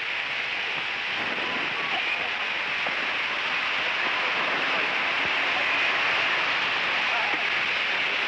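Old film soundtrack dominated by a steady heavy hiss, with faint street noise and distant voices of a flooded street underneath.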